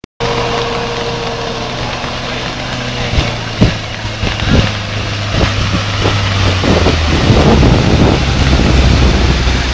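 Mitsubishi Pajero SUV engine running as it drives through deep floodwater, with water rushing and splashing around it, growing louder as it comes close. A few sharp knocks around the middle, and the engine note drops slightly near the end.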